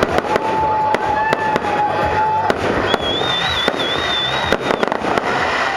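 Fireworks display: a dense, rapid crackle of bangs and pops. A long steady whistle runs through the first half, and a higher, wavering whistle comes in the middle.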